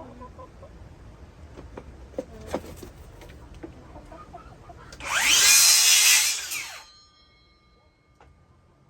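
Power drill driving a screw about five seconds in, running for roughly two seconds with its pitch rising and then falling; this is the loudest sound. Before it, chickens cluck and there are a few light knocks.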